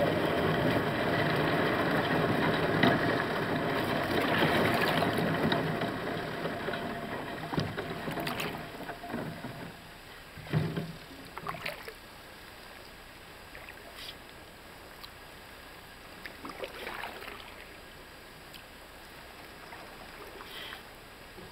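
Canoe being paddled: a loud rush of water noise for the first several seconds that fades away, then scattered short splashes and knocks from the paddle.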